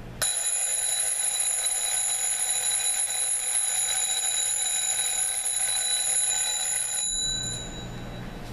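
AcuRite 15604 twin-bell wind-up alarm clock ringing very loud, its small hammer rapidly striking the two metal bells to give a steady high-pitched ring. It starts suddenly and cuts off about seven seconds in as the alarm is shut off, leaving a brief ring-out.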